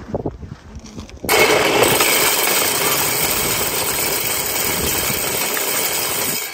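Deer feeder's timed spinner motor starting about a second in and flinging shelled corn, a loud steady whirring spray that lasts about five seconds and cuts off near the end: a test run of the feeder.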